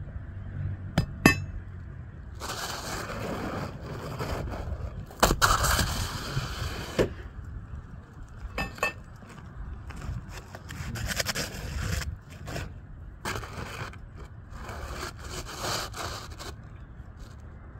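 Repeated scraping bursts with sharp clicks between them: tools being worked against asphalt roof shingles during a shingle repair.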